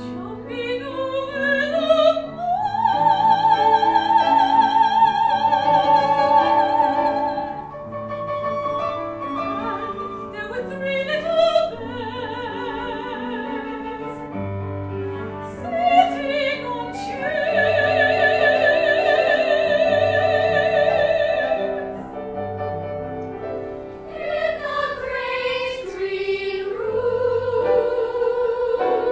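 Operatic soprano singing with a wide vibrato over piano accompaniment, holding two long notes, with a children's choir at times.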